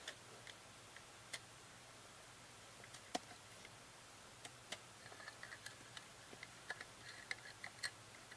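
Faint, scattered light clicks and taps from hands handling a VHS cassette and its tape while splicing it. The clicks are sparse at first and come more often in the second half.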